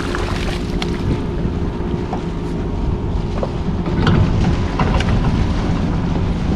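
Wind buffeting the microphone over the low, steady rumble of a fishing boat at sea, with a few sharp clicks and knocks scattered through it.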